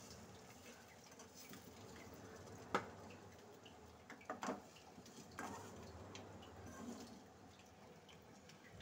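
Quiet kitchen background with a few light taps on the aluminium kadai as the masala-coated boiled eggs are turned: one a little before the middle, then a quick pair about two seconds later.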